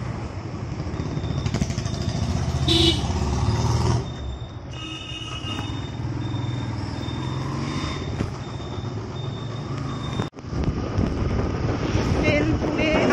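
Road noise heard from a moving motorcycle: engine rumble and wind with the hiss of traffic, and horns tooting around 3 and 5 seconds in. A faint high beep repeats about twice a second through much of it. The sound cuts out abruptly just after 10 seconds and resumes.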